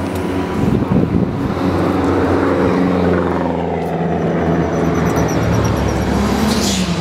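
Rally car engine being driven hard on the stage, its pitch rising and falling as the driver works the throttle and changes gear.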